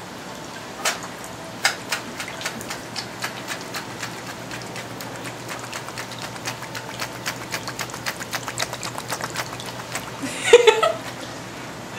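A live scallop held in a wet palm snapping its two shell halves together: a run of sharp clicks, sparse at first and coming several a second later on. A brief voice is heard near the end.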